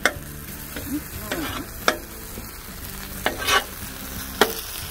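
Ground deer meat with diced onion and bell pepper sizzling on a propane griddle's flat top, while a metal spatula scrapes and stirs it in about five sharp strokes.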